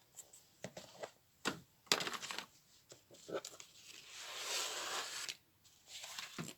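Paper and cardstock being handled: short rustles and light taps, with a longer sliding rustle about four seconds in.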